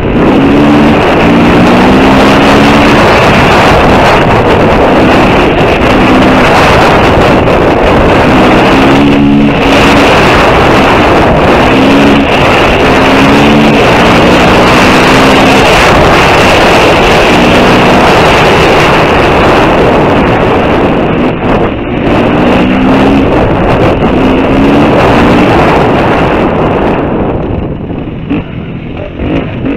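KTM 350 EXC-F dirt bike's single-cylinder four-stroke engine running hard, its pitch climbing again and again in short revving pulls, under heavy wind noise on the helmet microphone. Near the end the engine eases off and the wind noise falls away as the bike slows.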